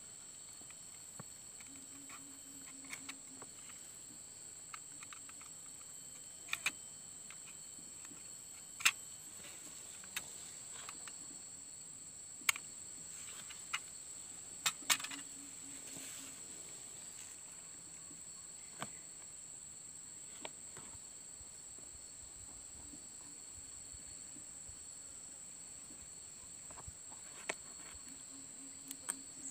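Insects keeping up a steady high-pitched buzz, with scattered sharp clicks and rustles from hands working a seedling in its plastic polybag.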